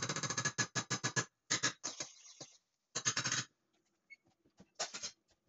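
A metal spoon clattering against a stainless steel pan as tomato paste is scraped off into simmering sauce. There is a fast run of strokes, then three shorter bursts.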